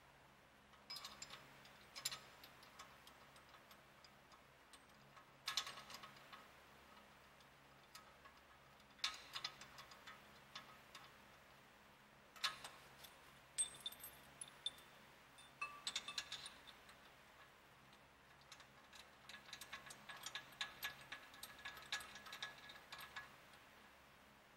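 Faint metallic clicks and clinks of brake parts and hand tools being handled, coming in short clusters every few seconds, with a denser run of light clicks near the end.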